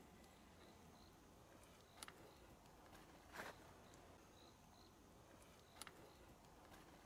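Near silence outdoors: a few faint, unevenly spaced footsteps, about two, three and a half and six seconds in, with faint short high chirps of insects here and there.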